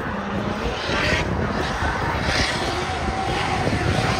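Drift cars revving hard as they slide, with tyres squealing on tarmac; two louder squeals come about a second in and again past two seconds.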